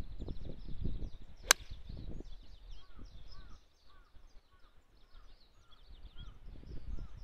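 A golf club strikes a ball with one sharp crack about a second and a half in. Birds chirp throughout, and in the second half one bird repeats a short call about twice a second.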